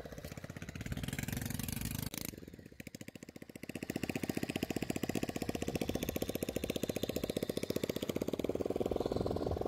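A small engine running steadily with a rapid, even firing beat. It falls back a little after about two seconds and comes up louder again about four seconds in.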